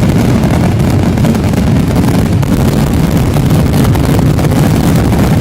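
Weco "Poison" Blitzschlag fireworks cake firing: a dense, continuous crackling with a heavy low rumble underneath.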